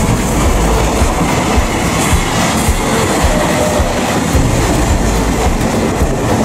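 Meitetsu electric train running loudly past on the track, a steady rumble with irregular wheel clicks over the rail joints.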